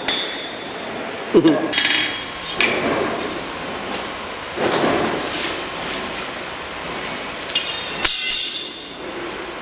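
Hand hammer striking hot sword steel on an anvil in a few irregular blows, several with a ringing metallic clang. The loudest come about a second and a half in and again near the end.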